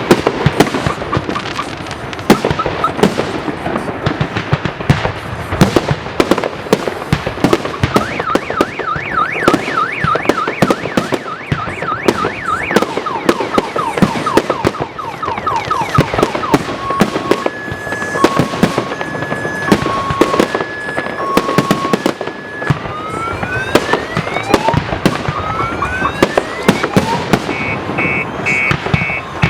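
Fireworks salute, a dense run of sharp bangs and cracks from bursting shells. From about the middle on, a car alarm cycles through its tones: repeated chirps, alternating two-note beeps, then rising whoops and a fast warble near the end.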